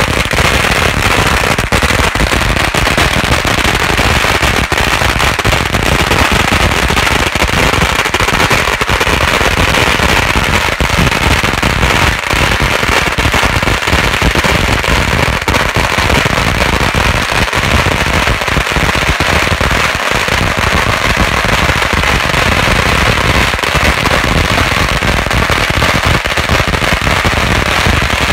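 A long string of red firecrackers going off in a continuous rapid crackle of bangs, loud and without a break.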